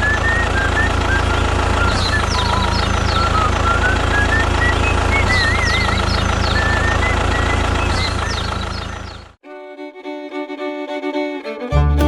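Background music with a fiddle melody over a steady low drone, which cuts off abruptly about nine seconds in. A different music track with a steady beat comes in near the end.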